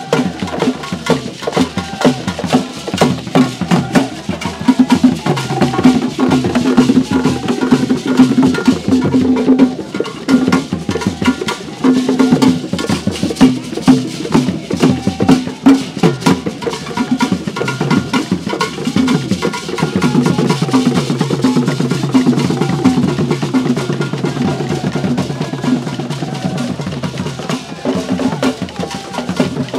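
Ensemble of traditional Ghanaian hand drums played in a fast, dense rhythm, with sharp wooden clacks among the drum strokes.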